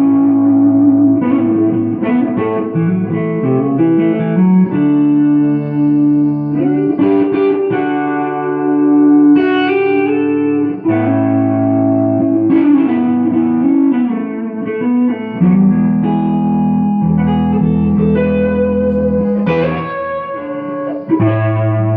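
Takamine GX-100 electric guitar with DiMarzio pickups played through a 5-watt Bugera T5 Infinium tube amp with its reverb turned way up: a run of held single notes and chords, some notes bent in pitch.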